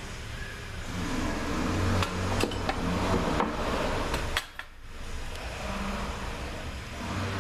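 Light metallic clicks and clinks of work on a bare engine, over a low, uneven hum.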